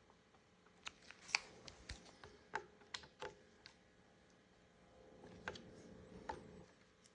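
Faint, scattered light clicks and taps of tools and rifle parts being handled, bunched in the first few seconds with a couple more later.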